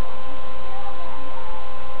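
A loud, steady electrical hum: two held tones over a low rumble and hiss, unchanging throughout.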